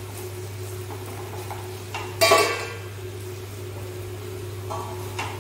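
A wooden spatula stirring thick chutney in a kadai, then one loud metallic clank with a short ring about two seconds in as the pan's stainless steel lid is handled. A steady low hum runs underneath.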